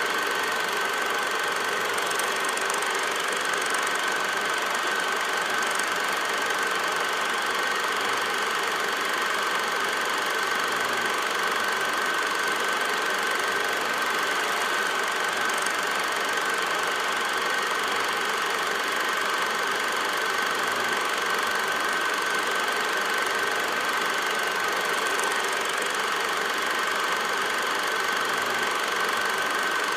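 Film projector running steadily, its motor and film mechanism clattering evenly under a constant high whine.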